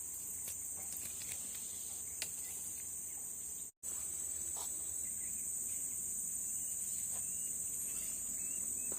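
Steady high-pitched insect chorus, the constant drone of crickets, with the sound cutting out completely for a split second about four seconds in.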